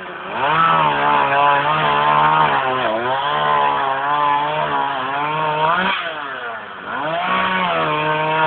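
Chainsaw running at high revs while cutting into a tree. Its engine pitch sags and recovers about three seconds in, and again more deeply between six and seven seconds.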